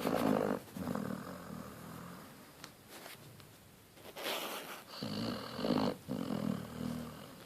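Basset hound snoring in its sleep. Twice, once at the start and again about four seconds in, a breathy rush is followed by a low, drawn-out snore.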